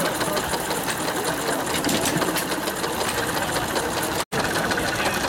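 Small scale-model hit-and-miss engines running, a fast, even mechanical clatter of many quick ticks. The sound cuts out for an instant about four seconds in.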